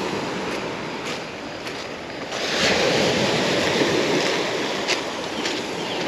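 Gentle surf on a pebble beach: small waves of a calmed sea washing up the shingle, with one wave surging in about two seconds in, louder for a couple of seconds, then easing back.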